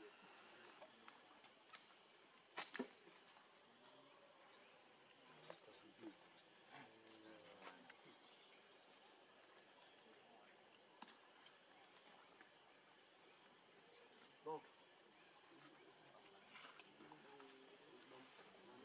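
Faint, steady high-pitched drone of insects in the forest, with a few sharp clicks: two close together about three seconds in and one more near fifteen seconds.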